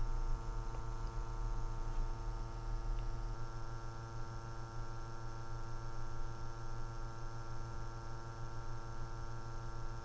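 A steady low hum, buzzy with a stack of even overtones, holding unchanged throughout.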